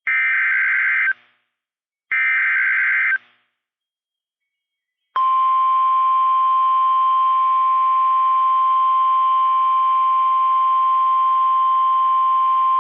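NOAA Weather Radio's SAME digital alert header: two one-second bursts of data screech, a second apart. They are the end of the coded header that switches on alert receivers for a warning. After about two seconds of silence, the steady 1050 Hz warning alarm tone begins about five seconds in and holds on.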